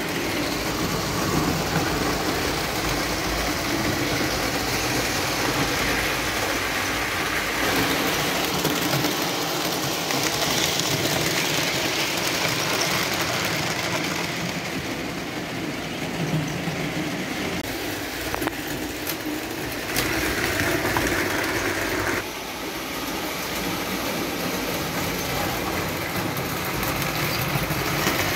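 Lionel O-gauge model trains running on three-rail metal track: a continuous rumble of wheels and electric motors over the rails and switches, shifting in tone every few seconds.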